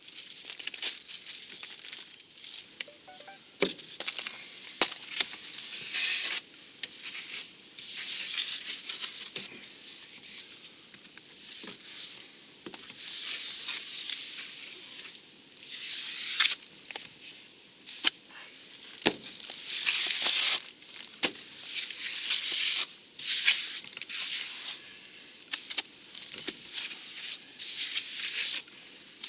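Trowel scraping and spreading cement render over the coop's wall in irregular, hissing strokes, with occasional sharp clicks of the tool.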